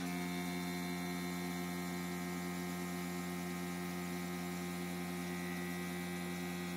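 Airbrush compressor motor running with a steady electric hum of several fixed pitches, starting abruptly and holding an even level throughout.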